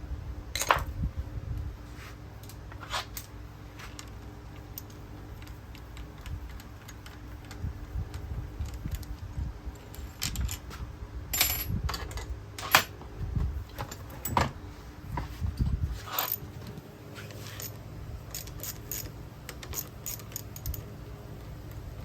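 Scattered metallic clinks and knocks of tools and parts being handled, over a steady low hum.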